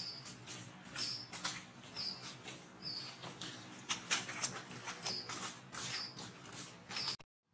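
Dry leaf litter crackling and rustling as macaques shift about on the forest floor, with a bird's short high chirp repeating about once a second. The sound drops out briefly near the end.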